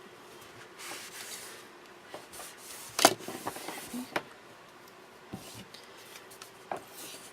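Paper and craft pieces being handled on a work surface: soft rustling about a second in, a sharp click about three seconds in, and scattered light taps.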